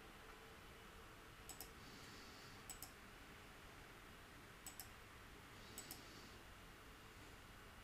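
Computer mouse clicking: four pairs of quick, sharp clicks spread over a few seconds, against faint room hiss.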